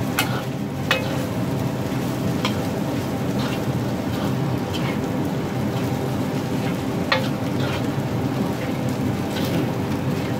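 Egg fried rice sizzling in a wok as a metal spatula stirs and tosses it, with irregular sharp scrapes and clicks of the spatula against the pan.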